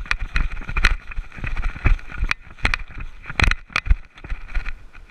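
Airsoft player moving up on foot: irregular thuds of footsteps and gear jostling, with sharp clicks and knocks scattered through, loudest in a cluster about three and a half seconds in.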